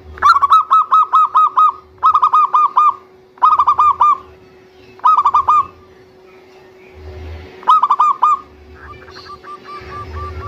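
Zebra dove (perkutut) cooing: five loud, short phrases of rapid staccato notes, each lasting about a second and separated by short pauses. Softer, evenly spaced notes follow near the end.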